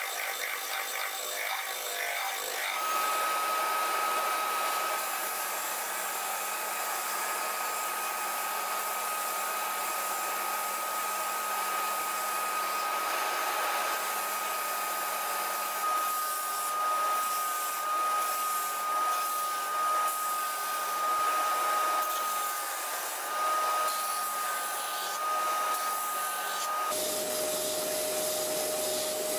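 Stationary belt sander running with a steady high whine, as a thin hardwood board is pressed against the belt and sanded, the rasping coming and going. The first couple of seconds are a drum sander in a drill sanding the board, and near the end the whine drops to a lower pitch.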